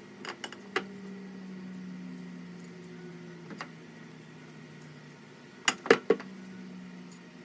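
Dishes and glassware being handled: a few light clinks in the first second, one about halfway, and three sharper, louder clinks close together near the end, over a steady low hum.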